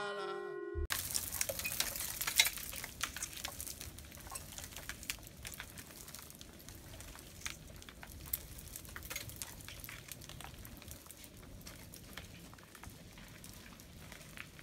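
Intro music cuts off about a second in, giving way to a dense, irregular crackle of small clicks and ticks from ice-coated tree branches, loudest in the first few seconds and slowly fading.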